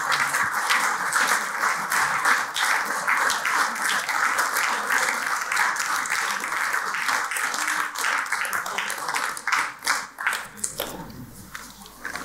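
Audience applauding, a dense patter of many hands that dies away about ten seconds in.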